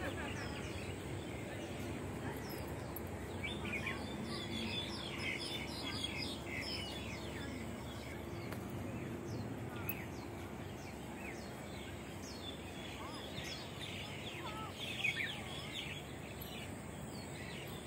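Small birds chirping in quick, short, falling calls, coming in bunches, over a steady background hiss.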